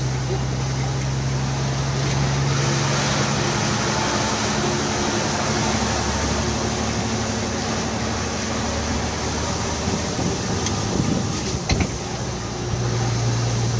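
Truck engine and road noise heard from inside the cab while driving at steady speed: a low engine drone over tyre noise, its note shifting about a quarter of the way in and coming back near the end, with a couple of short clicks shortly before that.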